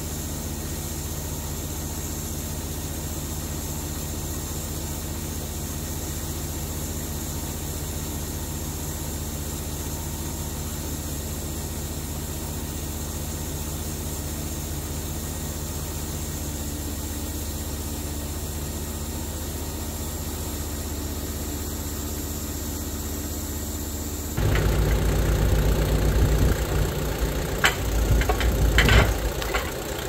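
An engine running steadily at an even speed. About three-quarters of the way through, it gives way suddenly to a louder, rougher sound with a few sharp knocks.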